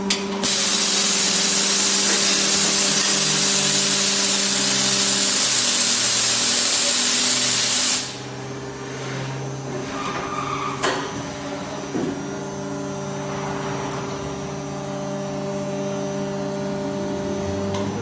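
Spray head of a die casting machine's release-agent sprayer hissing loudly into the open die for about seven and a half seconds, then cutting off suddenly. After it the machine runs on with a steady hum, broken by two short knocks.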